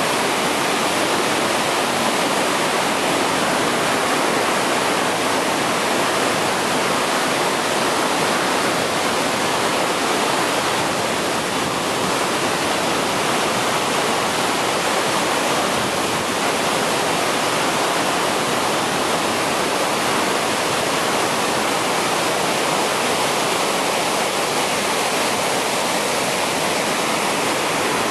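Spahats Falls and the whitewater creek below it: a steady, loud rush of falling and churning water.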